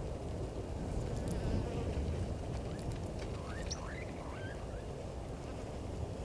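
Outdoor bush ambience: a steady low rumble, with a few short rising bird chirps about three to four seconds in and faint high ticks.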